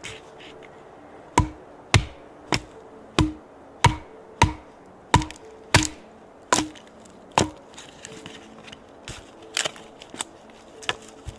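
About ten sharp, evenly spaced strikes, a little under two a second, each with a short ring after it, followed by a few lighter taps near the end.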